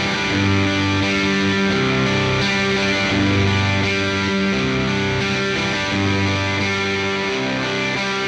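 Electric guitar played through a Catalinbread Dirty Little Secret MkIII, a Marshall-style overdrive pedal, giving a distorted tone. Sustained chords ring out and change roughly once a second.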